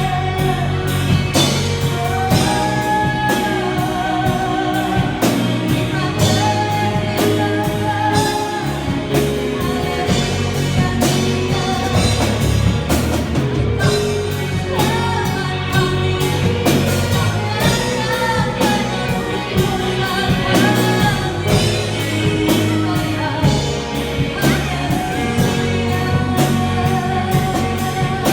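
A song played by a band with drum kit and guitar, a voice singing a melody over a steady beat.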